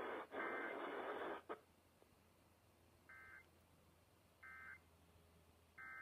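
Emergency Alert System test audio playing from a laptop: a stretch of harsh, noisy garble that cuts off about a second and a half in, then three short, faint data bursts about a second and a half apart, the EAS end-of-message tones.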